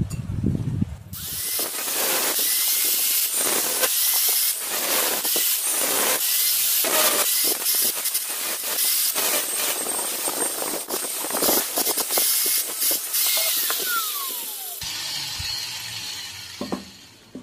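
Angle grinder with a cutting disc cutting through square steel tubing: a loud, steady grinding hiss over the motor's whine, starting about a second in. Near the end the whine falls in pitch, then the sound stops abruptly.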